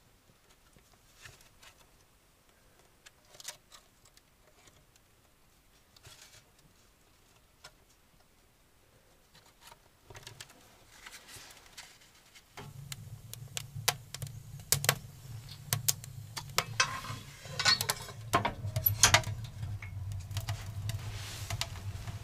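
Fire catching in a wood stove: a few faint crackles and clicks at first, then about halfway a steady low rumble sets in, with crackling over it that grows louder toward the end.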